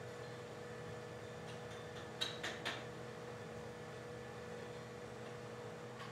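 Three light metallic taps of a hammer on steel about two seconds in, a quarter second apart, over a steady hum.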